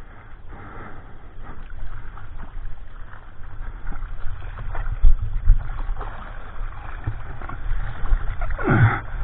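Seawater sloshing and splashing against a surfboard and its board-mounted action camera, with heavy low wind buffeting on the microphone and two loud thumps about five seconds in. Near the end, as water washes up over the camera, comes a gurgle that sweeps quickly downward in pitch.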